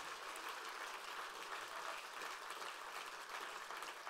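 Audience applauding steadily: many people clapping at once, with no voices over it.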